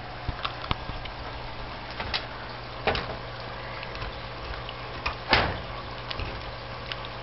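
A handful of short, sharp knocks and clatters, the loudest a thump about five seconds in, over a steady low hum.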